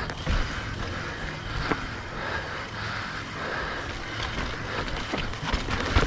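Mountain bike riding down a dirt trail: a continuous rush of tyre and wind noise, with rattling knocks and clicks over bumps.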